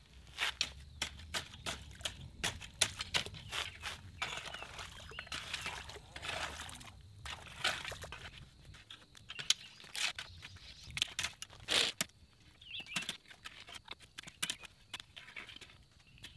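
Narrow trenching shovel scraping and jabbing at wet dirt and small stones in the bottom of a drainage trench. There are irregular sharp scrapes and clicks throughout, with longer rasping scrapes a few seconds in.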